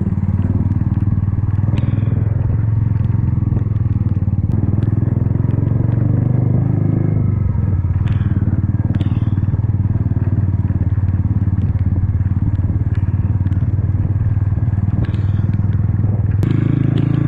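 Motorcycle engine running steadily while riding, picked up close from the bike itself, with a few sharp clicks now and then.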